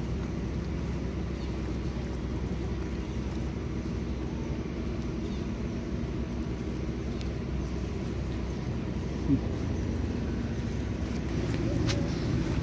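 Steady low outdoor rumble, with one brief rising chirp about nine seconds in. Near the end come crisp crackles of dry leaves as a baby macaque walks over the leaf litter.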